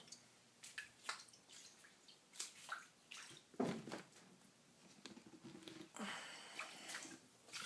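Shallow floodwater on a basement floor splashing and trickling in faint, irregular splashes, with one louder splash about three and a half seconds in.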